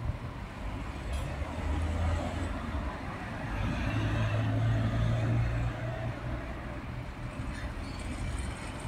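A light truck driving past close by, its engine drone swelling to a peak about halfway through and then fading, over steady road traffic noise.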